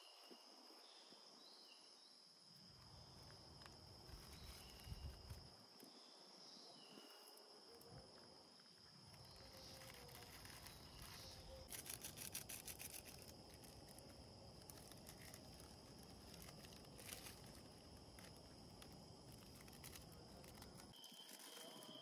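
Faint outdoor ambience: a steady high-pitched insect drone with a few short chirps, and a brief rattle of cookware and packet handling about twelve seconds in.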